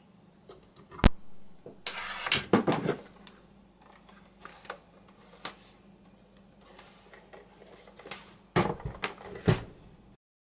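Handling noise from a homemade synthesizer box being picked up, turned and set back down on a desk: a sharp click about a second in, bumps and scraping around two to three seconds in, and a quick cluster of knocks near the end, over a faint steady low hum.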